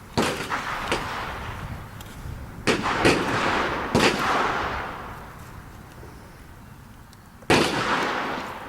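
Shotgun shots at clay targets: about five sharp blasts, two of them close together near the middle, each with a trailing echo.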